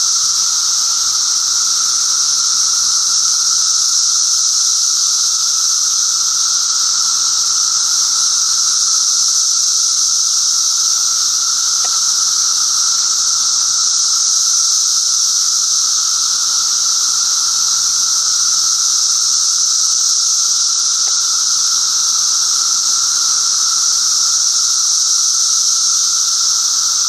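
Dense, unbroken chorus of Brood XIII seventeen-year periodical cicadas: a loud, steady, high-pitched drone with a lower steady tone beneath it, more than one kind of song going on at once.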